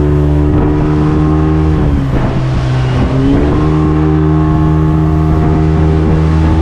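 Panga boat's outboard motor running under way, steady and loud, its pitch dropping briefly about two seconds in and climbing back a second later, over a rushing noise.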